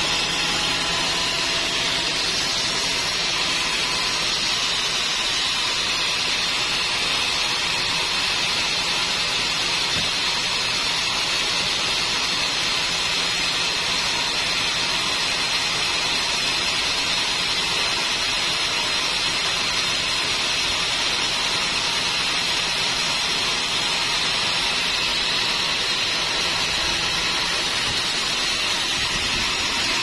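Band sawmill running steadily: a constant loud hiss from the machine and its moving blade, with a faint steady tone underneath.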